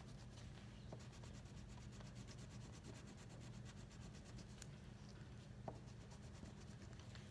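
Faint, quick scratching of coloring strokes on a coloring-book page, easing off a little past halfway, over a low steady room hum.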